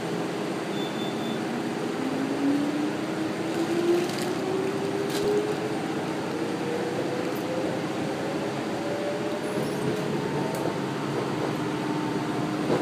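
Former Keio 3000-series electric train pulling away, heard from inside the car: the traction motors' whine rises steadily in pitch as the train accelerates, over a steady running rumble, with a few light clicks.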